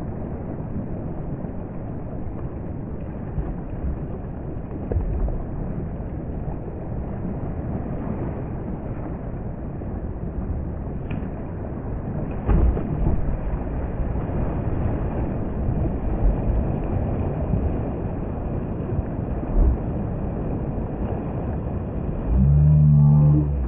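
River rapids rushing and churning around a kayak, with a few knocks and splashes from paddle strokes. Near the end a loud low tone sounds for about a second.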